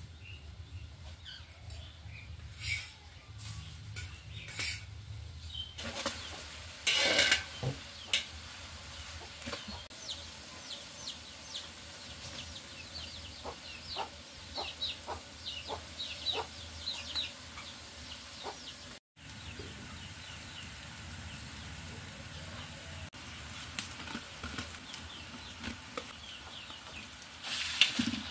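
Open-air wood-fire cooking: birds chirp and cluck, with a brief loud noise about seven seconds in. Near the end comes a loud sizzle as onions and spices fry in hot oil in a large aluminium pot while a spatula stirs them.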